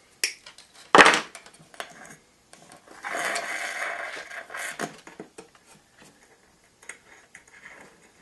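Handwork on a wooden picture frame as eyelets and picture-hanging wire are fitted: a sharp knock about a second in, then a scraping, rustling stretch and a few lighter clicks and knocks.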